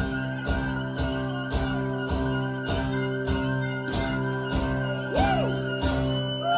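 Live acoustic band playing an instrumental passage: guitar strummed in a steady rhythm about twice a second under long held notes, with a lead line bending in pitch near the end.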